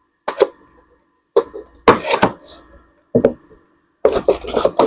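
Hard objects clattering as a shattered tablet LCD panel is handled and set down in a container: about five bursts of sharp knocks and clinks, with a faint ringing after them.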